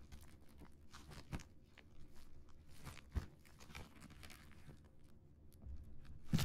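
Fingers tapping and rubbing on a plastic-wrapped cardboard box, giving small irregular crinkles and taps, with a sharper knock about three seconds in and the loudest near the end.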